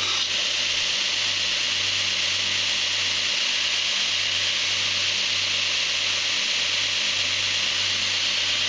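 Belt grinder running steadily while a D2 tool-steel knife blank is held against the belt: a continuous grinding hiss over the motor's low hum, as the blade's bevels are ground before heat treatment.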